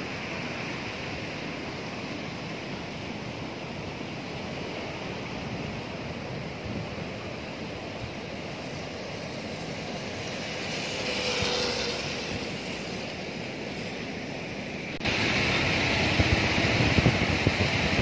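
Floodwater of a swollen river rushing, a steady wash of noise with wind buffeting the microphone, and a brief swell of louder noise near the middle. About fifteen seconds in it jumps suddenly louder to the roar of floodwater pouring over a weir.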